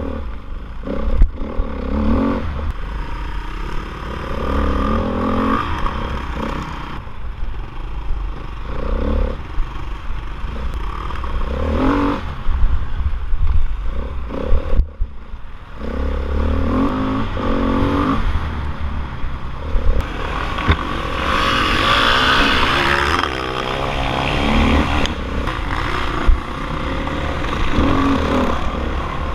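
Dirt bike engine heard from the rider's helmet camera, revving up and falling back again and again as the bike is ridden hard over a rough track, with a constant low rumble and occasional knocks and clatter from the bumps.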